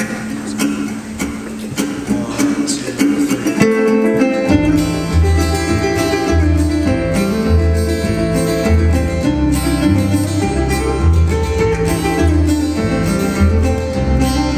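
Instrumental intro of a bluegrass-style song played live on acoustic guitar and resonator guitar, picked notes at first, with an upright bass coming in about four and a half seconds in and keeping a steady, even pulse of low notes.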